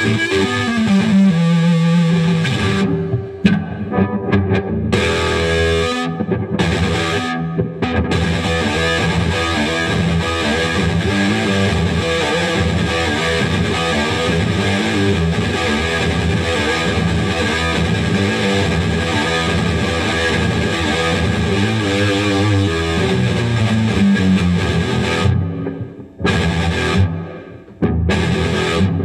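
Dean Razorback electric guitar played through a distorted amp: fast heavy riffing with a few brief stops, about three seconds in, around seven seconds in, and near the end.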